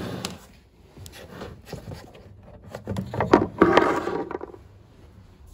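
Plastic rear cover of a Porsche 996 headlamp being unclipped and pulled off the housing: a series of plastic clicks and scrapes, loudest about three to four seconds in.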